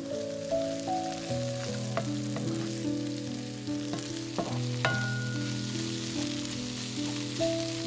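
Sliced red onions sizzling as they fry in a stainless-steel honeycomb-textured pan, stirred with a wooden spatula that scrapes and knocks against the pan several times. Soft background music plays underneath.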